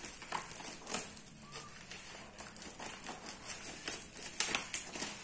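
Scissors snipping through black plastic parcel wrapping, with irregular sharp snips and crinkling of the plastic.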